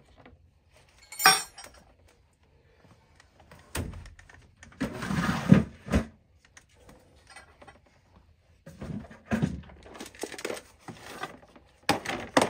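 Handling noises: a sharp knock about a second in, a longer rustling scrape in the middle, then a run of clicks and rattles near the end as a plastic parts organizer box of oil-burner nozzles is brought over and handled.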